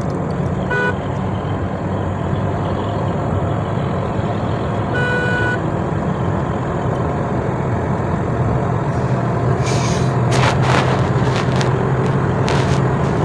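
Steady in-cabin road and engine noise of a Toyota Corolla GLi cruising fast on a highway, at about 160 km/h, growing slightly louder. A few short rushes of noise come about ten seconds in and again near the end.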